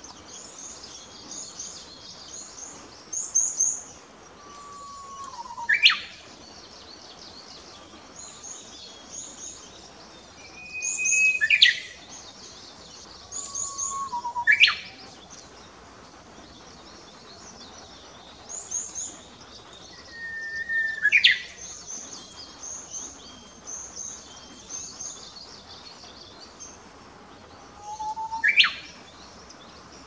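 Japanese bush warbler (uguisu) singing its 'hoo-hokekyo' song five times, each a long low whistle that ends in a quick rising flourish. High, thin twittering of other small birds runs in the background.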